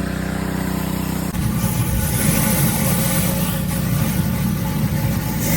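Pressure washer engine running steadily, with the hiss of water spraying from a surface cleaner attachment. About a second in, the sound changes abruptly to a stronger, rougher engine hum.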